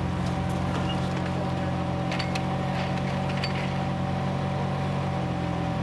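Toyota Celica rally car's engine idling steadily, with a few light clicks about two to three seconds in.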